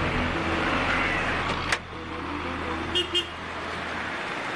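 Street traffic noise with a steady low engine hum, a sharp click, then two short quick vehicle-horn toots about three seconds in.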